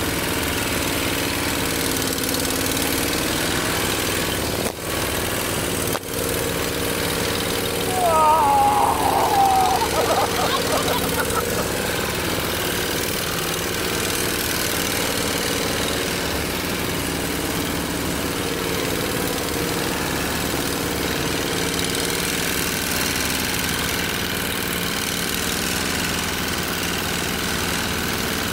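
Engine of a walk-behind tractor (motoculteur) running steadily as it pulls a loaded trailer along a dirt track. About eight seconds in, a brief higher wavering sound rises above the engine for a couple of seconds.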